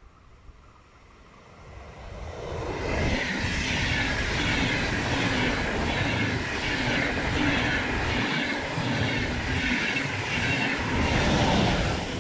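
Deutsche Bahn Intercity passenger train, a long rake of coaches, passing close by on the rails at speed. It builds up about two seconds in, stays loud with a steady rush of wheels on rail, and starts to fade right at the end.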